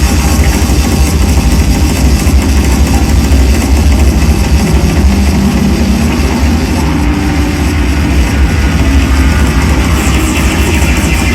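Live psychedelic drone-noise music: a loud, dense, unbroken wall of electronic noise over a heavy, steady low drone, without pauses or distinct beats.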